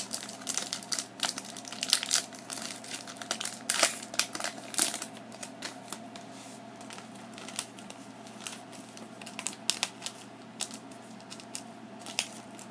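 Foil booster-pack wrapper crinkling and tearing open by hand, with dense crackling in the first few seconds. Sparser rustles and clicks follow as the wrapper and cards are handled.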